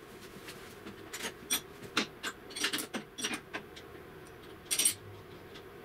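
Metal parts of a partly stripped planer thicknesser being handled: a string of sharp metallic clicks and clinks, irregular, the loudest near the end.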